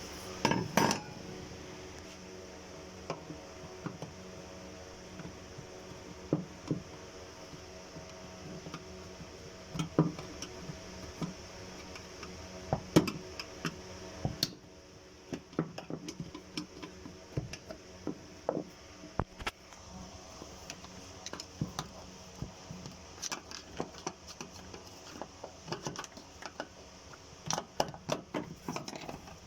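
Scattered light metallic clinks and knocks from the fuel pump assembly and its retaining ring being handled and lifted out of the fuel tank, over a steady background hum that stops about halfway through.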